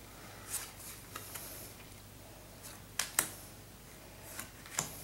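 Cardboard baseball cards being slid off the front of a hand-held stack one at a time, giving short papery flicks and snaps, the sharpest a close pair about three seconds in.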